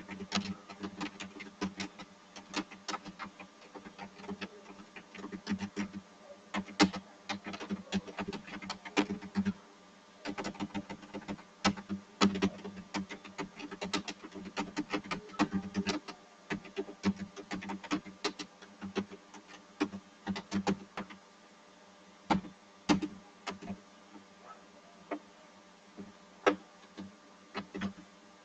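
Irregular clicking at a computer, several clicks a second with short pauses, over a steady low electrical hum.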